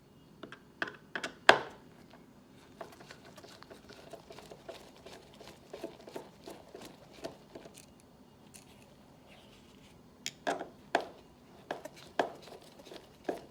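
A hard drive being handled and lifted out of its bay inside a 2010 27-inch iMac: scattered sharp clicks and knocks, loudest about a second and a half in and again about ten seconds in, with light rattling in between.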